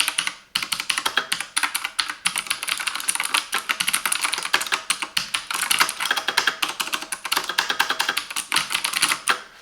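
Keys of a Silvercrest semi-mechanical gaming keyboard being typed on rapidly: a dense, continuous run of key clicks that stops just before the end.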